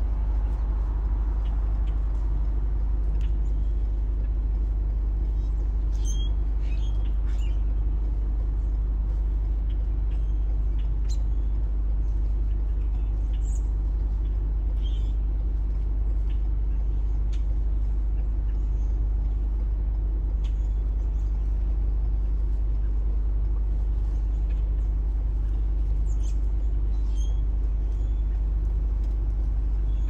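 Steady low rumble of roadside traffic, with a few short, faint bird calls now and then.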